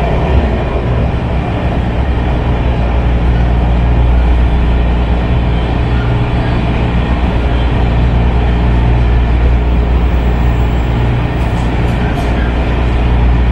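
MARTA metro rail car running at speed, heard from inside the passenger cabin: steady noise of wheels on the rails with a constant low hum.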